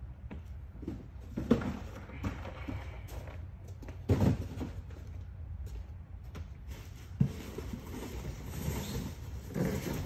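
Empty cardboard boxes set down and dropped into the chamber of a vertical cardboard baler: several dull thuds, the loudest about four seconds in, with footsteps on a concrete floor over a steady low hum.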